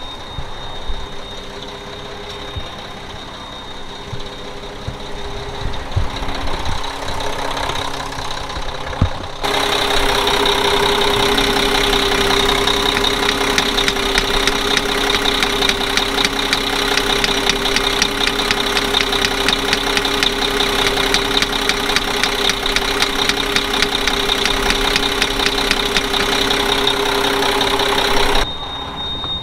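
Mack truck's diesel engine idling with a steady clatter. It is much louder and closer from about nine seconds in, and drops back just before the end. The truck is not building air pressure, which the owner puts down to a stuck unloader valve on the air compressor.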